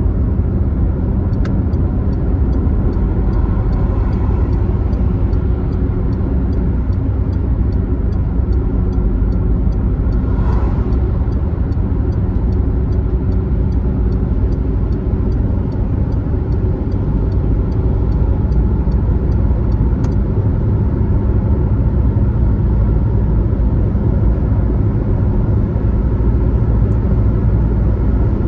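Car driving steadily on a highway: a continuous low engine and road rumble, with a brief swell about ten seconds in.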